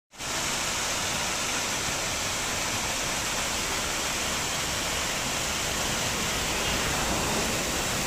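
Waterfall: several thin cascades pouring down a rock face and splashing onto rocks and into a pool, a steady rushing of falling water.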